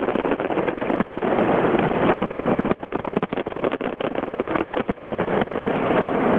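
Fireworks display: a dense, continuous run of overlapping bangs and crackling bursts, with a brief lull about a second in followed by the thickest, loudest stretch.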